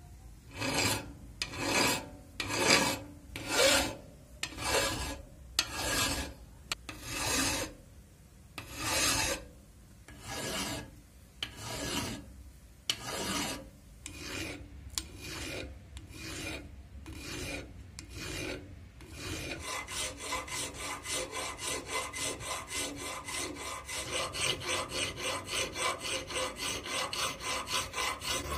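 Hand files rasping on the steel of an axe head clamped in a vise, working the eye. The strokes come slowly, about one a second, with a round file, then about two-thirds of the way through they turn to quicker, shorter strokes, two to three a second, with a flat file.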